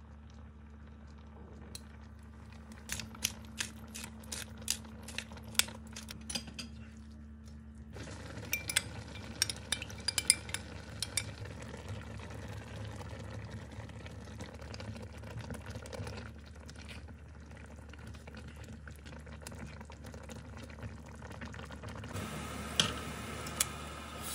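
A metal spoon clinking and scraping against a frying pan while seasoning and stirring a simmering vegetable gravy, in bursts of sharp clicks over a steady low hum.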